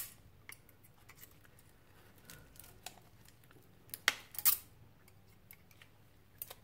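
Pliers snipping and prying at the metal can of a Samsung 18650 lithium-ion cell: scattered small metallic clicks and snips, with a sharp one at the start and two louder ones close together about four seconds in.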